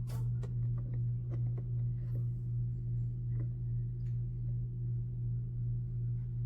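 A steady low hum with a gently pulsing level, and a few faint scattered clicks.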